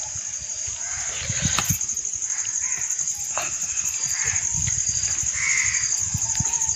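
Crows cawing several times over a steady high insect drone, with soft low pats and thumps as pearl millet dough is patted between the hands and pressed flat onto a hot iron griddle.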